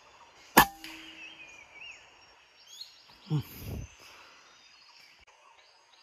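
A single sharp crack of a PCP air rifle firing, followed by birds chirping in thin, high calls. A short low voice sounds a few seconds later.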